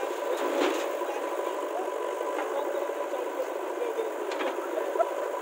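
Diesel engine of heavy earthmoving machinery running steadily, with a brief knock under a second in and a sharp click about five seconds in.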